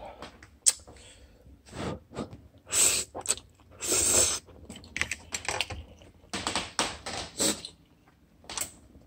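Handling noise at a table: irregular short clicks and knocks from chopsticks and a plastic food container, with several rushes of noise about three and four seconds in and a cluster of quick bursts later on.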